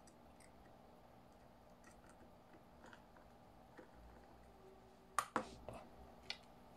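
A few sharp, light clicks and taps about five seconds in, with a last one a second later, over quiet room tone: small parts and tools being handled at a workbench while a hard drive is taken apart.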